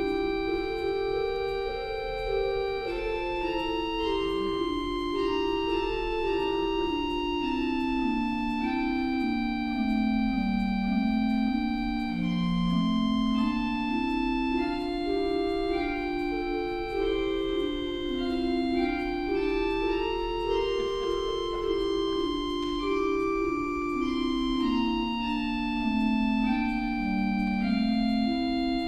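Church organ playing a hymn tune transposed into a new key: slow, held notes in several voices at once, the melody moving stepwise up and down.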